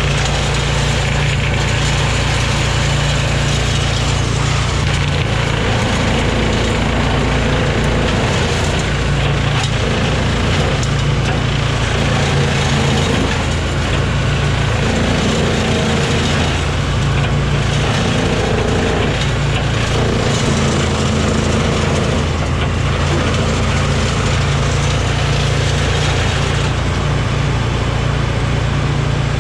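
Brush Bandit 280XP woodchipper running steadily, its sound shifting every few seconds as it chips small pines.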